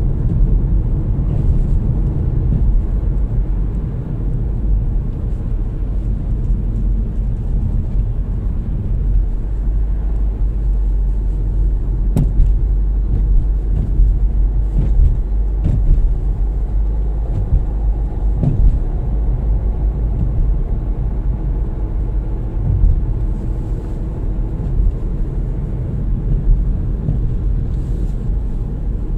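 Steady low rumble of a car's engine and tyres on the road, heard from inside the cabin, with a few light knocks about halfway through.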